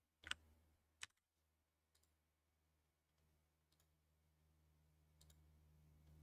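Near silence with a few sharp computer mouse clicks, the two loudest in the first second and fainter ones later, over a faint steady low hum.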